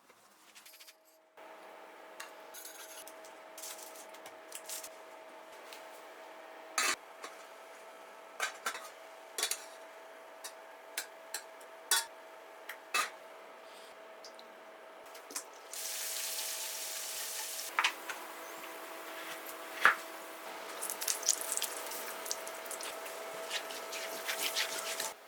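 Kitchen work: scattered clinks and knocks of utensils against dishes over a faint steady hum. About two-thirds of the way through, the hiss of food sizzling in a hot pan begins and carries on, with more clatter over it.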